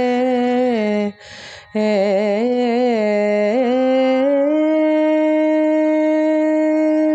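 A woman singing a wordless Carnatic vocal line in Nattai raga, with wavering pitch ornaments (gamakas). She takes a short breath about a second in, then sings more ornaments and settles on a long held note over the second half.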